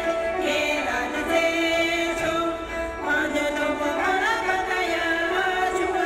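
Music with a singing voice carrying a gliding melody over a steady instrumental backing.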